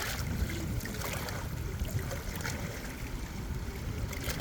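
Moving water, a steady low rush with a few short splashes.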